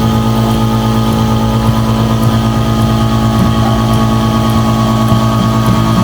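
Oil-free air compressor running steadily at a constant pitch, loud and even.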